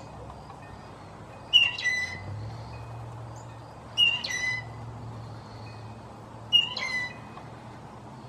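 Blue jay calling: three harsh, downward-dropping calls, roughly two and a half seconds apart.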